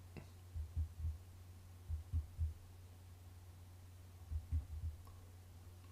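Computer keyboard keys pressed repeatedly for undo (Ctrl+Z), heard as dull low thumps in three quick clusters of about three taps each, with a couple of lighter clicks, over a steady low hum.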